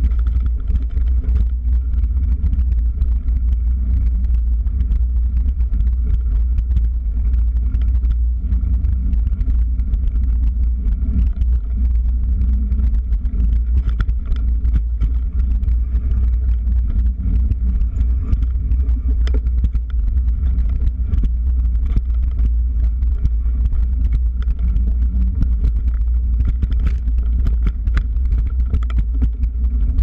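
Steady low rumble of wind and vibration on a bike-mounted camera's microphone as a trail bike rolls along a dirt singletrack, with many small clicks and rattles from the bike and mount over the rough ground.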